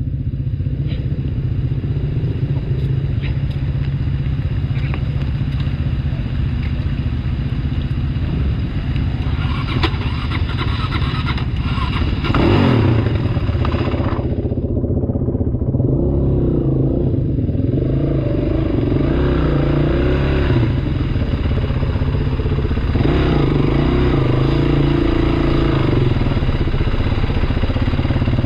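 Motorcycle engine running at low speed and idling, with the throttle opened and closed several times in the second half as the bike picks its way through mud.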